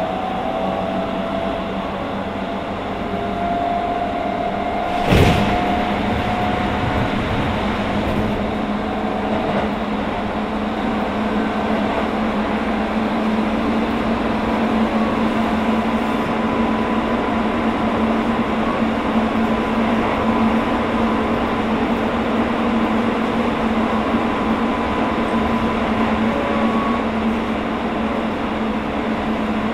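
Inside a Hokuso 7300-series electric train car, above its Toyo GTO-thyristor inverter, running at speed: a steady hum and dense wheel-and-motor running noise. A thin tone stops about seven seconds in. A single sharp knock comes about five seconds in.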